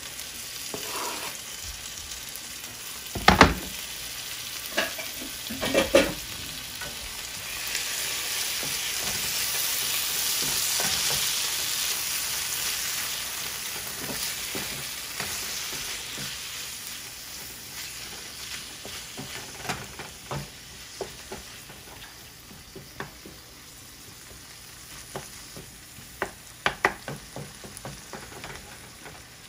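Crumbled tofu sizzling as it fries in a non-stick pan of onion-tomato sauce, stirred and scraped with a wooden spatula. Two sharp knocks in the first six seconds are the loudest sounds; the sizzle swells in the middle, and light clicks of the spatula come near the end.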